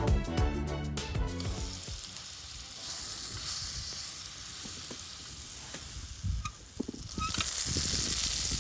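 Food sizzling as it fries in a pan, with light clicks of a utensil stirring it; the sizzle sets in after the opening music fades and grows a little louder near the end.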